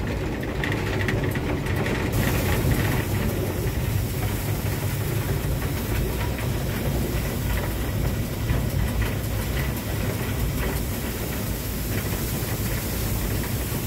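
Cab noise on the footplate of a Beyer Garratt narrow-gauge steam locomotive under way: a steady low rumble with scattered light knocks and rattles.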